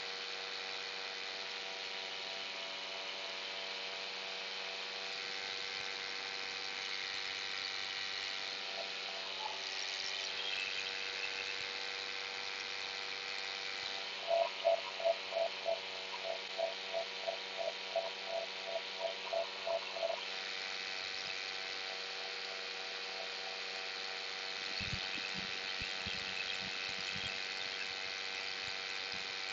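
Paramotor engine droning steadily in flight. From about 14 to 20 seconds in, a run of short beeps sounds over it, about three a second.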